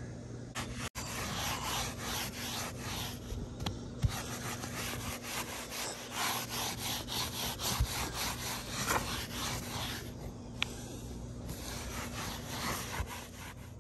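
A rag in a gloved hand rubbing over the Kool Seal-coated roof and the cut edge of a vent hole, in quick scrubbing strokes about three a second, with a short pause about ten seconds in. This is the surface being cleaned before a roof vent is caulked down.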